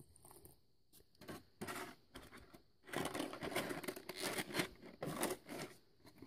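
Clear plastic blister tray and a small plastic bag of Nendoroid figure parts rustling and crackling as they are handled, irregular and louder from about three seconds in.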